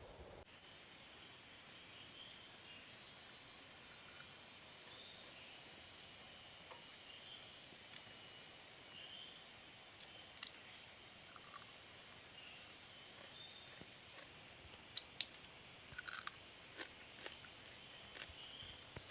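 Forest insects: a steady, high-pitched buzz with a chirp repeating about once a second. The buzz stops suddenly about 14 seconds in, leaving the chirping and a few faint clicks.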